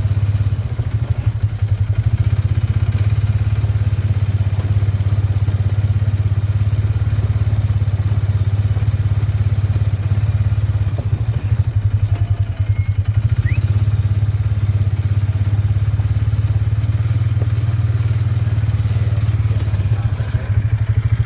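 Farm vehicle's engine running steadily at low speed, a deep, evenly pulsing hum.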